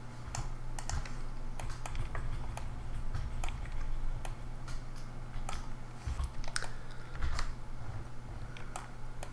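Scattered, irregular clicks of a computer keyboard and mouse over a steady low hum.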